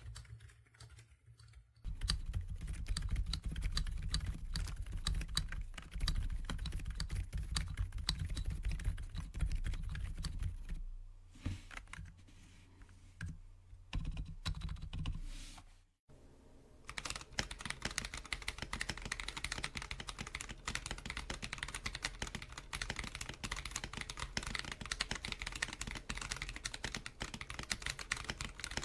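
Continuous fast typing on a mechanical keyboard fitted with Akko V3 Penguin silent tactile switches. The typing stops abruptly about sixteen seconds in and resumes a second later with a brighter, more even run of key clicks.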